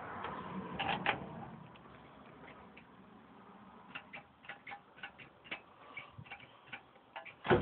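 A run of light, irregular clicks, about three or four a second, as the David Brown 990 tractor's dashboard controls are handled before starting. Right at the end a loud sound begins as the engine is turned over to start.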